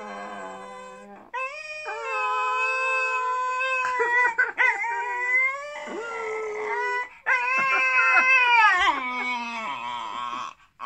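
Small dog howling in several long, wavering calls with brief breaks between them: a drawn-out 'talking' howl. The last call slides down in pitch near the end.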